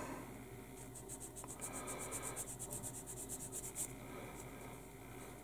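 Sanding stick rubbed quickly back and forth against a small plastic model wheel part, a faint dry scratching at about eight or nine strokes a second that starts about a second in and stops near four seconds.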